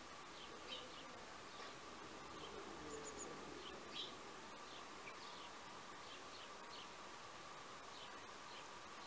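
Faint garden ambience: a steady thin hum with scattered short, distant bird chirps.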